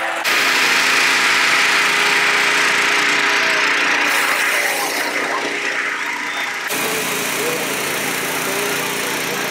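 Gas-engine inflator fans running steadily as hot air balloons are cold-inflated, a loud whooshing roar over a steady engine hum. The sound shifts abruptly twice.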